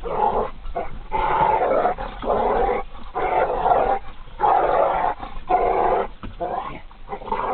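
Dogs growling in a string of rough growls, each up to about a second long with short breaks between them, as a pit bull and a dachshund play-fight.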